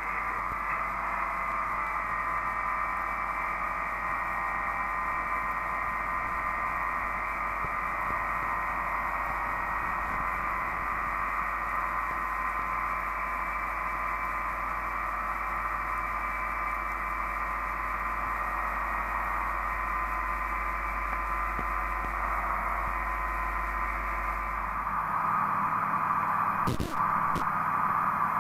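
Engine and propeller of a Bristell ultralight running at takeoff power on the takeoff roll, heard as steady, narrow-band noise through the headset intercom. Near the end the level rises a little and there is one sharp click.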